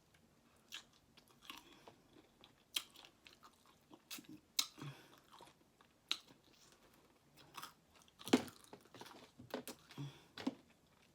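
A person chewing and biting fried chicken legs: irregular wet mouth smacks and crunches, the loudest about eight seconds in.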